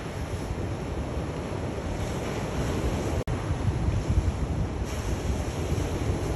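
Sea waves washing onto a shore in a continuous rush of surf with a deep low rumble. A very brief dropout about three seconds in is typical of an edit in a looped recording.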